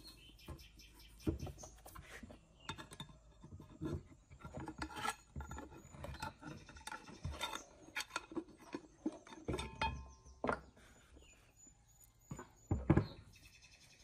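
Irregular metal knocks, scrapes and clicks as the rusted two-part motor housing of an old ceiling fan is worked loose and pulled apart by hand, with a couple of sharp metal clanks near the end.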